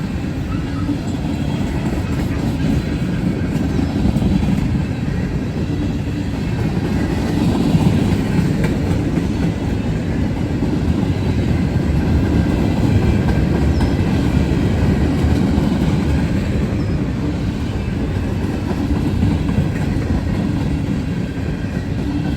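Freight cars rolling past on the rails: a steady, unbroken noise of steel wheels running on track.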